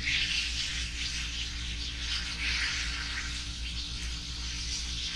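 Fish frying in a pan of hot butter and oil, with a steady sizzle over a low hum.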